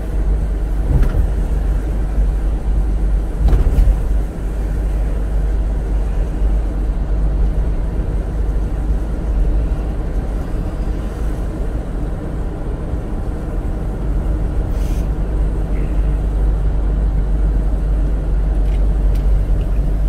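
Steady low rumble of a car driving along a road, its tyres and engine running evenly, with a few faint knocks along the way.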